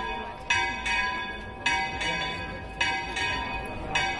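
Church bells ringing in a steady pattern of paired strokes, one pair a little more than once a second, each stroke ringing on into the next.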